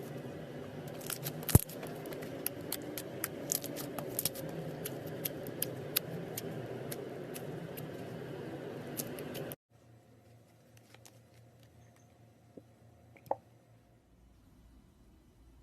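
Slime being handled and squished, with many small sharp clicks and pops over a steady rustling noise; it cuts off abruptly about two-thirds of the way in, leaving only a few faint clicks.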